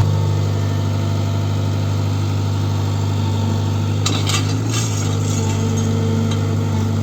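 Tata Hitachi Zaxis 120 excavator's diesel engine running steadily, with a few short sharp knocks about four seconds in.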